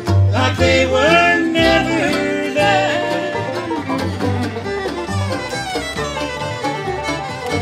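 Acoustic bluegrass band playing an instrumental passage, fiddle and five-string banjo out front over guitar, mandolin and upright bass, with sliding notes in the melody.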